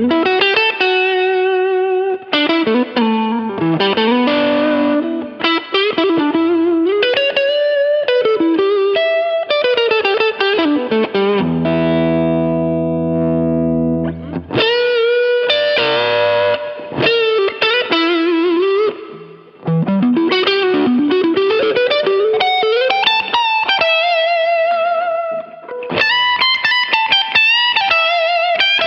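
Overdriven electric guitar played through a Quilter Aviator Mach 3 combo amp, a lead solo of quick note runs, bends and wide vibrato. About twelve seconds in, a chord rings out steadily for a couple of seconds before the runs resume.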